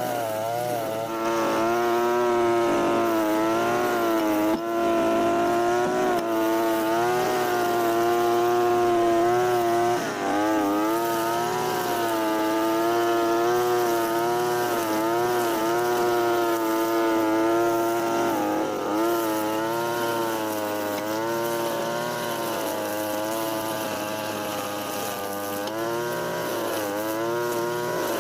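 Europa Hilt TB43 two-stroke brush cutter running at high revs while cutting grass, its engine note wavering and dipping briefly several times as the blade takes load.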